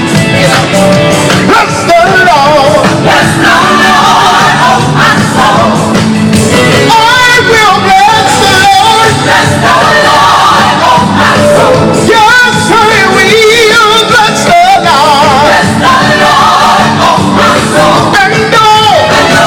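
Gospel choir singing over a recorded backing track, with wavering, vibrato-laden vocal lines over a full accompaniment.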